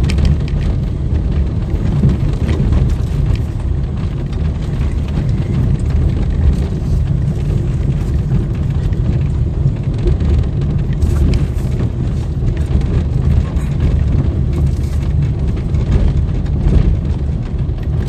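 Steady low rumble of a car's tyres and body heard from inside the cabin while driving slowly over an old, uneven stone-paved road, with scattered small knocks and rattles from the jolting.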